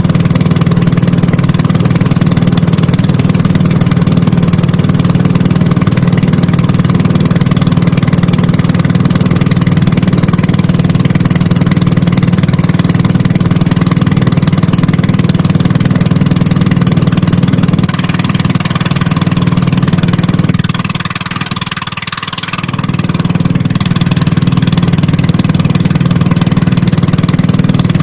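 A loud, steady low engine drone that dips briefly about twenty seconds in.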